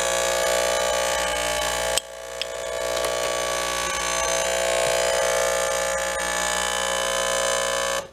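Saeco Incanto S-Class Sirius espresso machine's vibratory water pump running with a loud, steady buzz, pumping toward the steam wand to ventilate (prime) the water circuit, which the owner cannot get to clear. The buzz drops suddenly about two seconds in, builds back up, and cuts off near the end.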